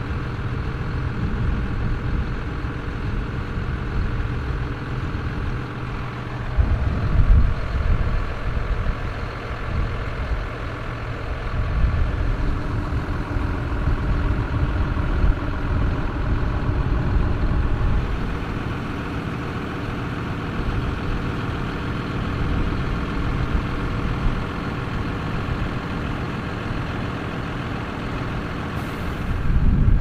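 Large diesel farm tractor engines running at steady revs, with a steady mechanical whine over the engine note. The engines swell louder about seven seconds in and again later.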